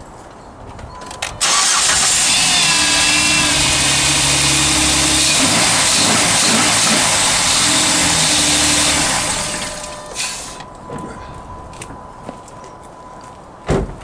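A 2010 Jeep Wrangler's 3.8-litre V6 cold-starts after sitting overnight. It catches suddenly about a second and a half in and runs loud at fast idle for about eight seconds, then the sound drops away. This is the start-up the owner says used to knock for about two seconds, and which he has tried to cure with a dealer Mopar oil filter.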